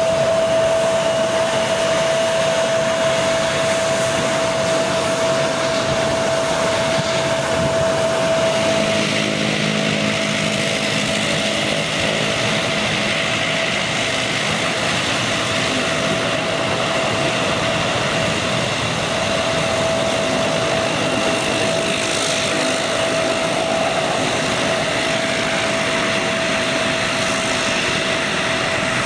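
A taxiing Bombardier CRJ-700 regional jet, its turbofan engines running with a steady high whine. About nine seconds in, this gives way to a taxiing Dash 8 Q300 turboprop, its engines and turning propellers making a lower hum with hiss.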